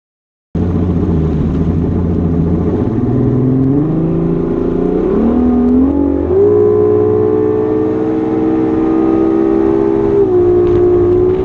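Bass boat's outboard motor running at speed, starting abruptly just under a second in; its pitch climbs in steps for several seconds as the boat accelerates, then holds high and steady with a brief dip near the end, over a hiss of wind and water.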